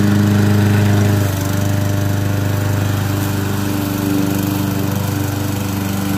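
Walk-behind lawn mower running steadily while being pushed across grass, cutting. Its note drops a little about a second in and wavers again near the end.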